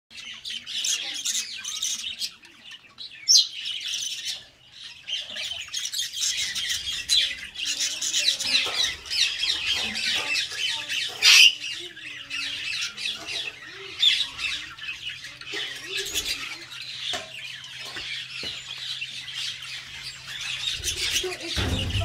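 African grey parrots chirping, whistling and squawking in a near-continuous stream of high calls. A few sharp, louder calls stand out about three seconds in, around eleven seconds (the loudest) and near fourteen seconds.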